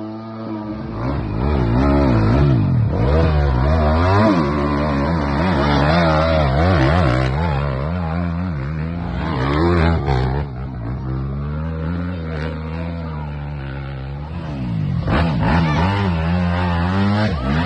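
Dirt bike engines revving hard and falling back again and again, the pitch rising and dropping in repeated bursts, as the bikes fight for traction on a steep muddy climb with the rear wheel spinning.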